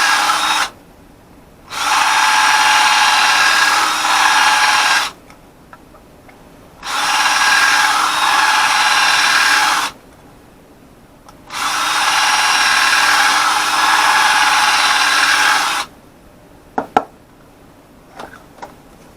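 A small electric power tool, drill-like, runs in bursts of three to four seconds with short pauses between, as holes in a small fan enclosure are opened up larger. The motor stops a few seconds before the end, and a few light clicks and taps follow.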